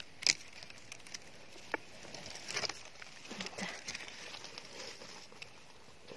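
Dry leaf litter crackling and rustling as a gloved hand digs a bolete mushroom out of the forest floor. There are a couple of sharp snaps in the first two seconds, then a longer stretch of rustling.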